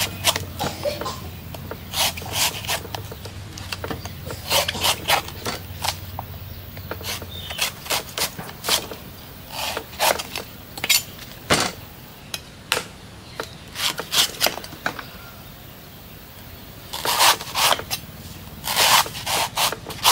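Large kitchen knife slicing and shaving the fibrous husk of a young green coconut: short, crisp cuts and scrapes in irregular clusters, busiest near the end.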